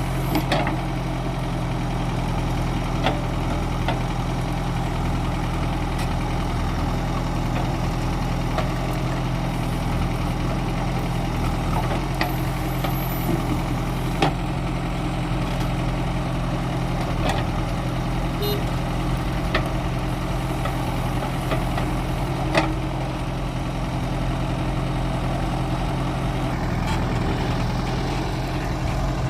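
Heavy diesel engine of earthmoving machinery running steadily at low, idle-like speed, with a few short sharp knocks and clanks over it, the sharpest about three-quarters of the way through.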